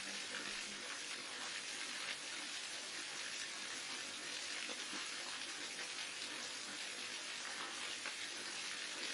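Waterfall: water falling and splashing in a steady, unbroken rush with a bright hiss.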